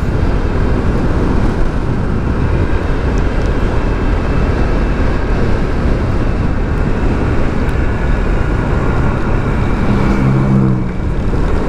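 Motorcycle riding at speed: wind rushing over the microphone and the engine running as a steady low rumble. A humming engine note stands out briefly near the end.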